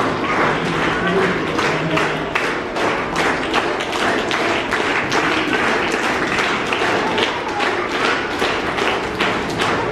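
Audience clapping, a steady run of sharp claps several times a second, with faint music and crowd noise underneath.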